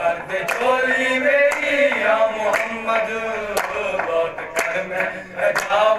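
Qawwali sung by male voices, kept in time by hand claps about once a second.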